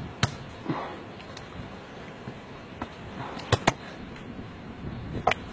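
A volleyball being struck by hands and forearms in play: single sharp slaps, once near the start, twice in quick succession about three and a half seconds in, and once near the end, with faint voices in between.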